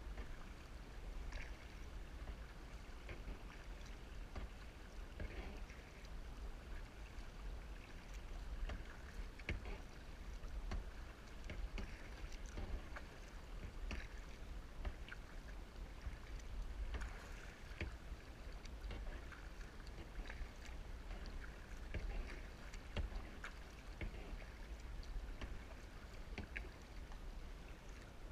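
Kayak paddling: irregular splashes and drips of water from the paddle blades, over a steady low rumble.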